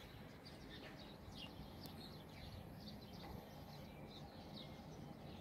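Faint outdoor ambience: small birds chirping in quick, repeated short calls over a low steady rumble.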